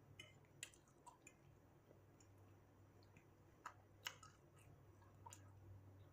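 Faint chewing, with a handful of short, soft mouth clicks scattered through.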